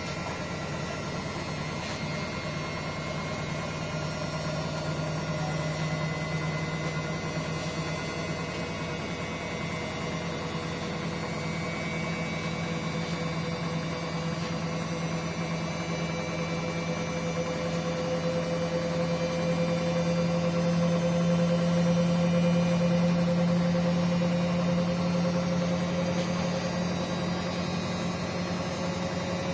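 Hotpoint Ariston washing machine running on its Quick Wash 60 cycle: a steady motor hum with a higher whine that slowly rises in pitch, getting a little louder toward the end.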